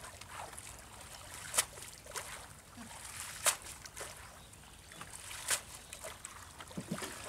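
Water splashing and sloshing as a cast net is worked by hand in shallow river water, with a few sharp splashes spaced a second or two apart.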